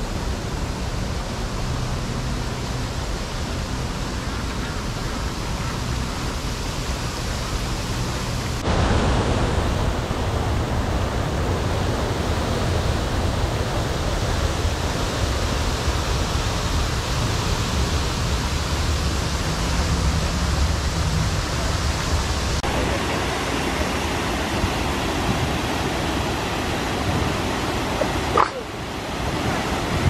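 Steady rush of falling water from a waterfall. The noise is even throughout. It steps louder about a third of the way in and shifts again near the end.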